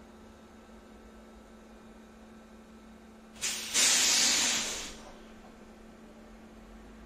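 A burst of compressed air hissing out of a city transit vehicle's pneumatic system, about three and a half seconds in, lasting a little over a second and fading away. A short puff comes just before it, and a steady electrical hum runs underneath.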